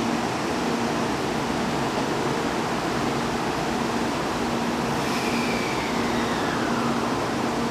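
Shinkansen 300 series train making a steady rushing noise at the platform. About five seconds in, a whine starts and falls steadily in pitch, as from the train's motors while it slows.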